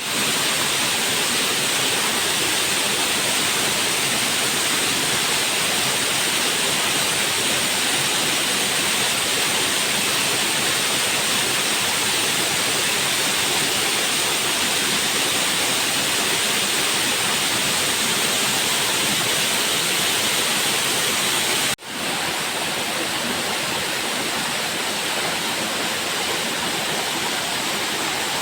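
Waterfall, a steady loud rush of falling water. It cuts out for an instant about 22 seconds in, then goes on slightly quieter.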